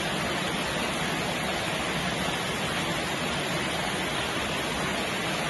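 Steady, even hiss of falling rain, a continuous rain ambience with no distinct drops or other events.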